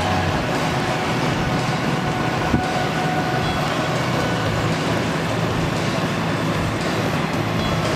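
Steady airport apron engine noise: a continuous roar with a low hum underneath, with one brief click about two and a half seconds in.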